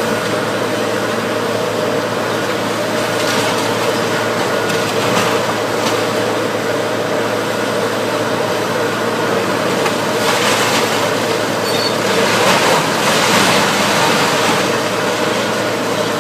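Engine running steadily under a rumbling noise that swells louder about ten seconds in and again around thirteen seconds.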